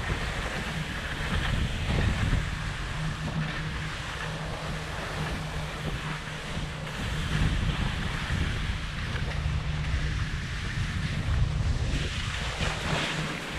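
Wind buffeting a GoPro Hero 7 Black's microphone over skis hissing and scraping through heavy snow during a steep descent, the rush swelling and easing every few seconds.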